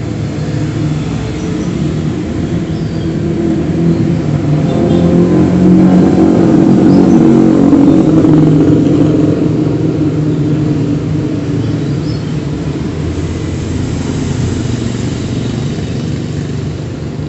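A motor vehicle engine running nearby. It grows louder to a peak around seven seconds in, then fades again.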